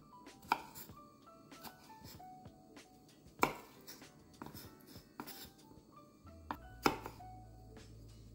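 Knife slicing strawberries and knocking on a wooden cutting board in uneven strokes, three of them much louder than the rest. Light background music plays underneath.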